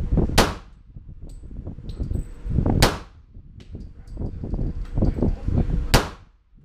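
Three single shots from a .40 S&W semi-automatic pistol, fired slowly about every two and a half to three seconds. Each shot is followed by a short ringing echo off the walls of the indoor range.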